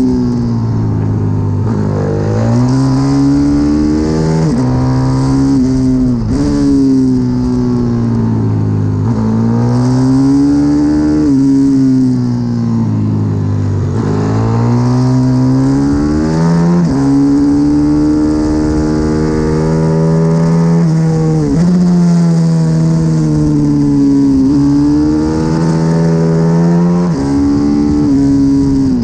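Single-cylinder four-stroke engine of a 140 cc pit bike, heard from on board at racing speed: the engine note climbs hard under acceleration, drops sharply at each gear change and sinks as the bike slows for corners, over and over.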